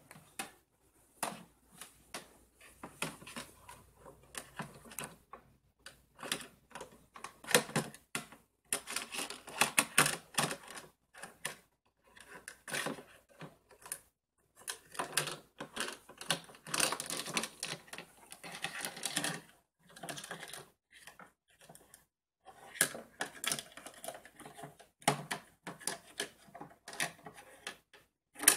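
Plastic toy cookware and utensils clicking and clattering: a toy frying pan, plastic spatula and plastic play food being knocked and scraped on a plastic toy kitchen, in irregular clusters of light clicks with short pauses between.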